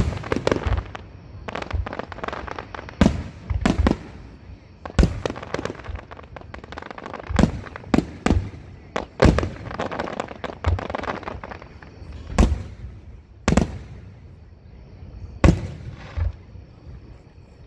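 Aerial fireworks shells bursting overhead: loud bangs at irregular intervals, sometimes several in quick succession, with dense runs of crackling in between.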